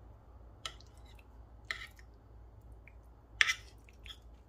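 A spoon working sauced cannelloni on a plate: four brief, soft clicks and squishes, the loudest about three and a half seconds in.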